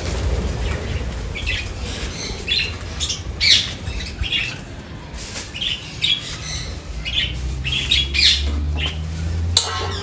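A flock of budgerigars chattering in a stream of short squawks and chirps. A single sharp knock comes near the end.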